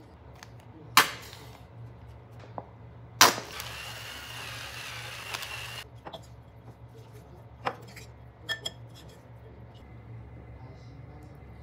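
Kitchen handling sounds while making coleslaw in a glass bowl: a sharp click about a second in, another sharp click followed by a couple of seconds of hissing, then a spoon clinking a few times against the glass bowl as the salad is stirred.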